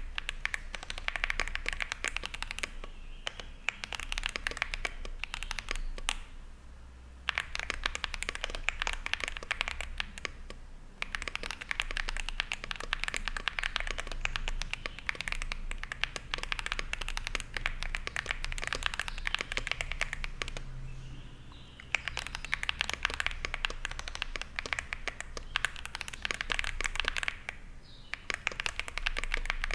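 Typing on a Zoom65 mechanical keyboard with stock WS Brown switches, an aluminium plate, IXPE foam and PBT dye-sub keycaps: rapid runs of keystrokes clacking, with a few short pauses.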